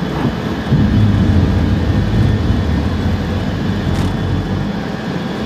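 Four Pratt & Whitney TF33 turbofans of an E-3A AWACS heard from inside its cockpit, a loud steady rumble that swells about a second in as power comes up for the takeoff roll.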